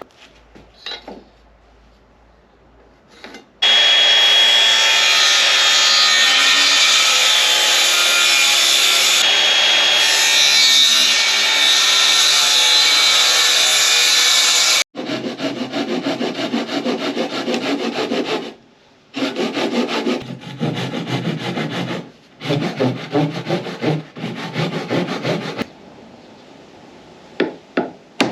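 Saw cutting wood. One long, steady stretch of cutting is followed by three shorter stretches of rhythmic sawing strokes, each starting and stopping abruptly.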